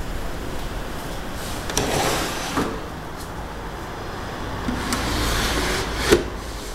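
Wooden drawer of an antique walnut table pulled open: a sliding wood-on-wood scrape that ends in a sharp knock about six seconds in. A shorter scraping noise comes about two seconds in.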